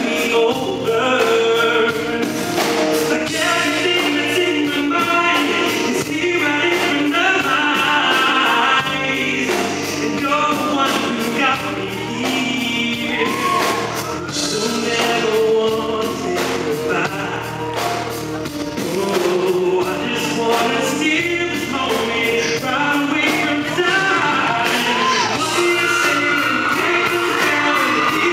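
Male vocalist singing a pop song live into a handheld microphone, with a band playing behind him.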